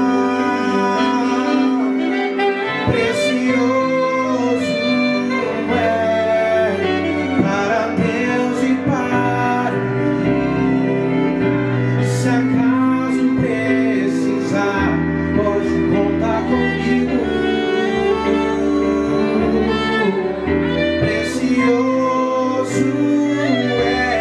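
A live band playing: a male singer on microphone carries a slow melody, with violin and saxophone over sustained low chord notes.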